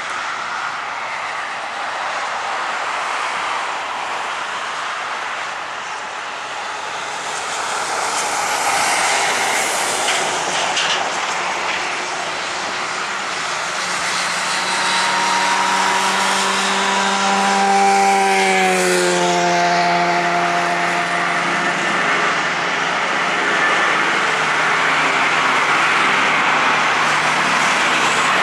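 Airbus A330-200 airliner's twin turbofan engines at takeoff thrust, the jet noise growing louder as it lifts off and climbs past. A humming whine in the engine sound drops in pitch about 18 seconds in as the jet goes by.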